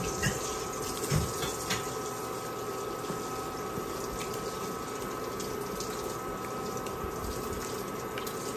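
Water bubbling at a boil in a pot while leafy greens are stirred with tongs, with a few light clicks of the tongs against the pot in the first two seconds. A faint steady whine sounds underneath.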